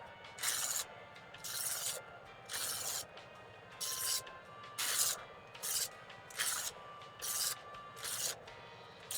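Chef'sChoice 15XV electric knife sharpener running, with a kitchen knife blade pulled through its abrasive slots about ten times, roughly once a second. Each pull gives a short grinding hiss of metal on the spinning abrasive wheels, over the sharpener's steady motor running between pulls.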